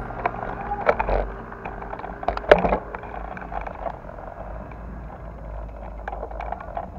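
Outdoor ambience with a low rumble and scattered clicks and knocks, the loudest knock about two and a half seconds in, settling to a steadier noise in the second half.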